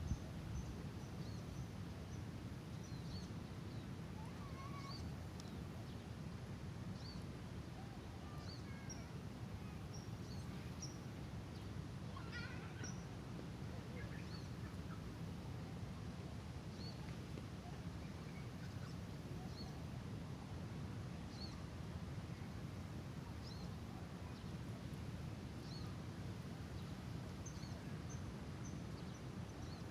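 Outdoor ambience: a steady low rumble with short, high bird chirps every second or two, a few of them lower and longer.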